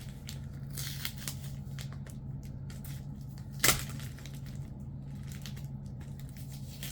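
Plastic comic bag and cardboard backing board being handled and pulled apart, crinkling in short crackles, with one sharp louder crackle a little past halfway.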